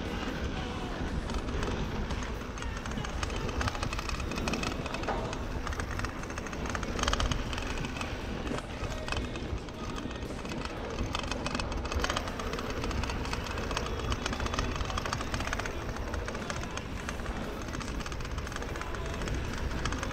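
Mountain bike riding down dirt singletrack: wind rushing over the camera microphone with steady clatter and rattling from the bike over the rough trail.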